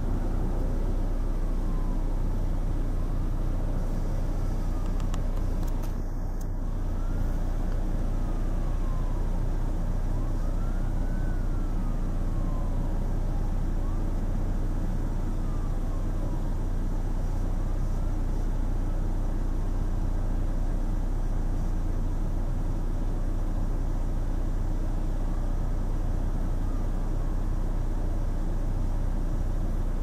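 Steady low rumble of distant road traffic. A faint tone rises and falls every few seconds above it.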